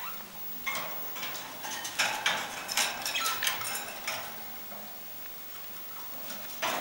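Two budgerigars touching beaks, making soft chatter with quick beak clicks and short chirps. The sounds come in a busy run during the first half, go quieter for a couple of seconds, and pick up again at the end.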